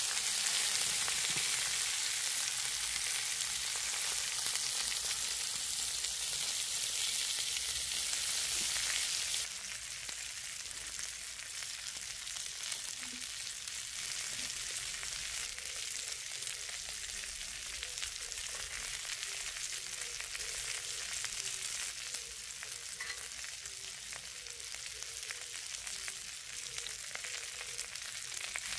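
Beef short ribs sizzling on a hot iron griddle, a steady crackling sizzle that turns suddenly quieter about nine seconds in.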